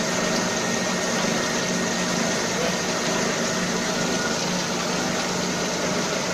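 Oil refining machinery running with a steady hum, while peanut oil showers from a perforated pipe into a stirred tank.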